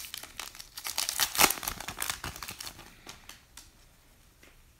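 The wrapper of a 2017 Topps Holiday baseball card pack crinkling and tearing as it is pulled open by hand, loudest about a second and a half in. The crinkling dies away after about three seconds.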